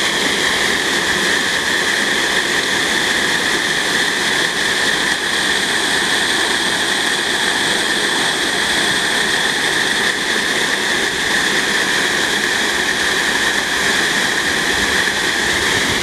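Water pouring over a low weir, a steady rushing that does not let up.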